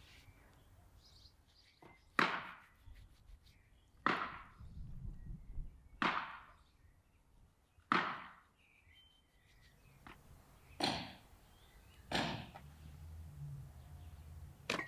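A knife slicing through raw lamb fat tail on a wooden cutting board. There are about seven separate cutting strokes, roughly every two seconds, each a short rasping swish that fades quickly.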